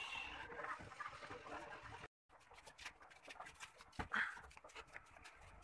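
Faint outdoor background noise that cuts out for a moment about two seconds in, then scattered light knocks of cardboard-boxed vitrified floor tiles being handled and leaned against a stack. There is a sharper knock about four seconds in, followed at once by a short high-pitched sound.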